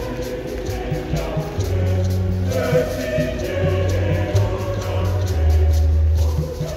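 Church choir singing a Luganda hymn in harmony, over deep held bass notes and a steady beat.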